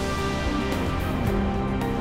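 Theme music with sustained notes over a steady low bass.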